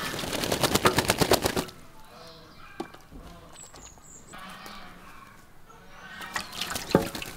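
Muscovy duck bathing in a shallow tub of water: its wings beat the water in a rapid splashing flurry for about a second and a half, then softer dabbling and dripping as it dips its bill, with another brief splash near the end.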